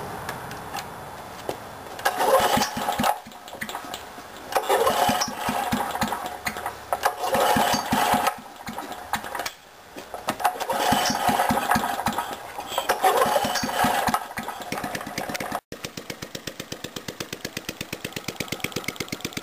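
Small BSA slanted-cylinder stationary engine firing in short bursts that catch and falter several times, then running on with even firing beats over the last few seconds. It struggles to run because its carburettor float sticks and the throttle does not work, so the fuel has to be controlled by hand or it floods.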